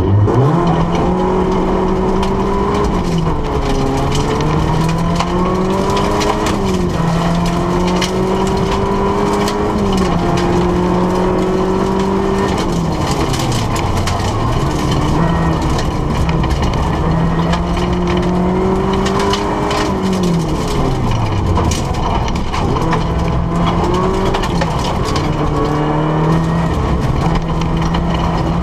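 Rally car engine heard from inside the cabin, leaping in revs at the launch and then pulling hard through the gears, its pitch climbing and dropping at each gear change and falling away twice as it slows for corners. Gravel pings and crackles against the car's underside throughout.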